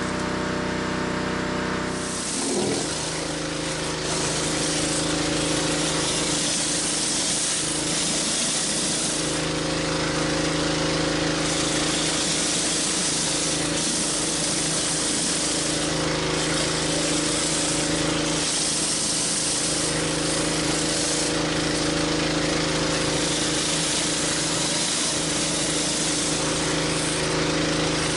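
Pressure-washer engine running steadily under the hiss of a 14-inch Whirl-a-Way rotary surface cleaner spraying water onto concrete. About two seconds in, the spray starts and the engine note changes as it takes the load.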